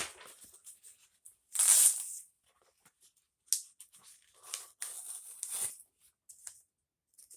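A shipping package being torn open and handled. There is one loud rip about a second and a half in, then shorter bursts of tearing and crinkling.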